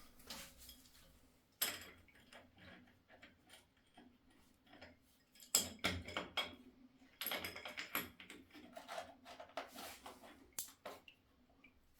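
Faint, irregular clinking and clattering of small hard objects being handled, in scattered clusters of sharp clicks with the loudest about five and a half seconds in.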